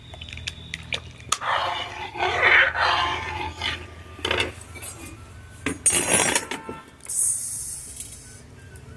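Long steel ladle scraping and clinking against an iron kadhai while thick, just-finished rabri is stirred and ladled, with a few sharp knocks of metal on metal.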